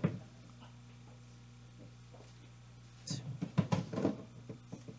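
A thrown drum knocking and thudding as it rolls and bumps on the set floor, in a short cluster of knocks about three seconds in, over a steady low electrical hum.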